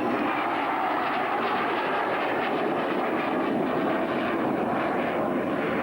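Sukhoi Su-25UB's twin turbojet engines at power during a low attack run: a steady rushing jet noise with no clear pitch.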